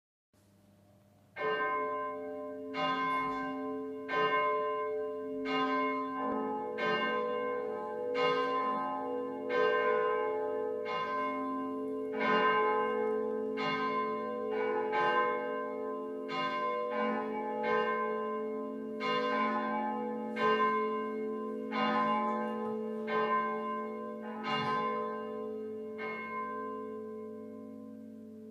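Church bells tolling, struck at a steady pace of about one stroke every second and a half, with each stroke ringing on into the next. The strokes begin about a second and a half in and stop a couple of seconds before the end, leaving the hum to fade.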